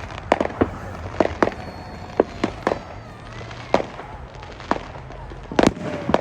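A fireworks display going off: an irregular run of about a dozen sharp bangs, coming a fraction of a second to a second apart, with the loudest near the end.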